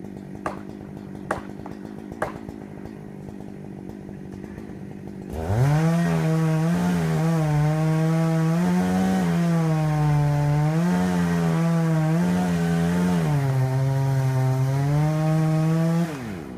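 Two-stroke chainsaw throttled up about five seconds in and run flat out for about ten seconds while cutting into the tree, its pitch sagging and recovering as the chain bites, then let off near the end. Before it, a faint steady hum with a few light clicks.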